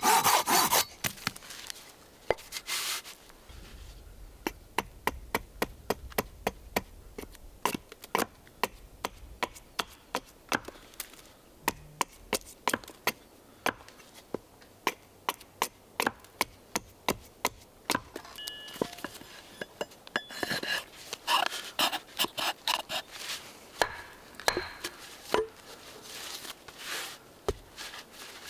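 Hatchet chopping on wood. A long series of sharp wooden knocks, about two a second, as a stick is struck against a log chopping block, with rasping strokes of a saw right at the start. Near the end come rougher crunching and creaking sounds as a hand auger bores into a log.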